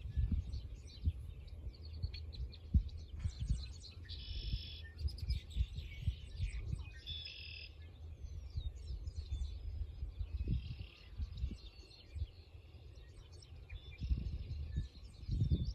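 Several songbirds singing and calling, with a couple of longer buzzy trills about four and seven seconds in. Wind buffets the microphone in gusts underneath, loudest near the end.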